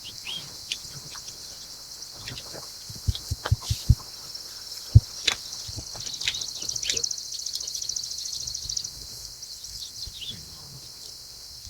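Outdoor ambience of birds chirping over a steady high insect drone, with a fast trill from about six to nine seconds in. A short run of low thumps comes about three to four seconds in, and one more just after.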